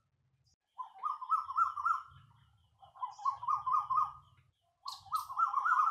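A bird-like warbling call, repeated three times. Each call lasts about a second and a half and wobbles quickly up and down in pitch.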